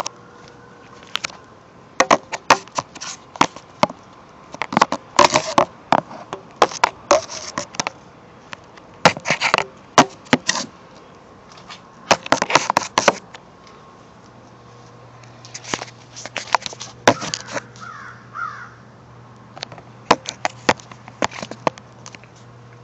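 Handling noise: irregular clusters of sharp clicks and crackles from hands working close to a phone's microphone.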